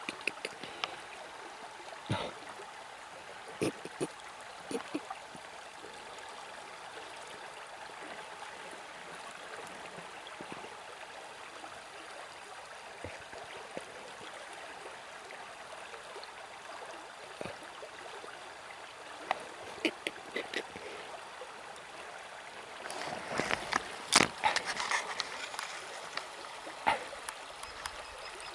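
River water flowing steadily, with scattered short splashes and knocks; the splashes come thick and loud for a couple of seconds a few seconds before the end.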